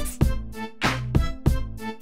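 Intro music with a steady drum beat and bass notes.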